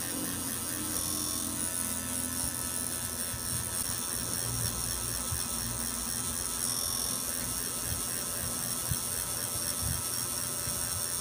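Tattoo machine running steadily with a mechanical whirring buzz as the needle fills black ink into the skin.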